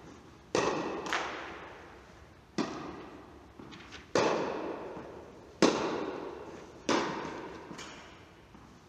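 Tennis ball being struck by rackets and bouncing during a groundstroke rally, six sharp pops roughly one to one and a half seconds apart, each trailing off in the long echo of a large indoor tennis hall.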